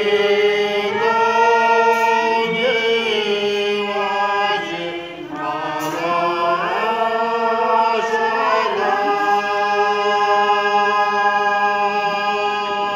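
A group of men and women singing a Sherpa shyabru song together in unison, unaccompanied, in long drawn-out held notes; the singing stops near the end.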